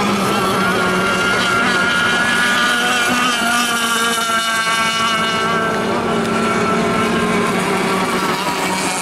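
Racing boat's outboard engine running steadily at high revs, its pitch wavering slightly.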